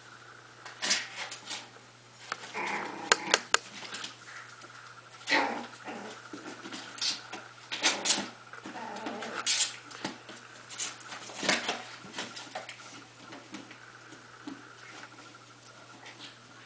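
A Yorkie puppy playing inside a cardboard box house: irregular knocks, scratches and scuffles against the cardboard, mixed with small puppy noises.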